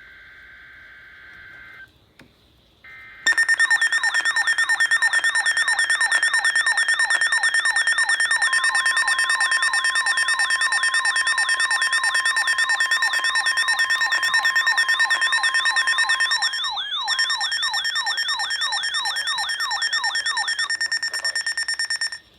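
Weather alert radio's electronic siren alarm going off: a loud warbling alarm of quick rising sweeps, about three a second, over steady shrill tones, starting about three seconds in and cutting off abruptly near the end. It is the receiver being set off by the National Weather Service warning alarm tone, a steady tone of about 1050 Hz that is heard under the siren for several seconds in the middle.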